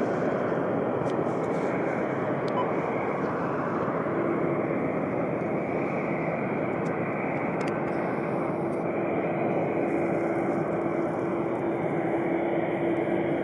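Boeing 767 jet airliner rolling out on the runway after touchdown, spoilers up: a steady jet rush, with a steady low hum joining about four seconds in.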